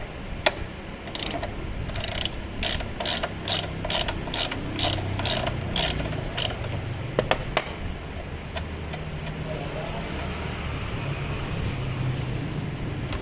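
Socket ratchet wrench clicking in quick strokes, about three a second, as a nut on the scooter's front wheel is worked loose. It stops about six seconds in, followed by two sharp clicks.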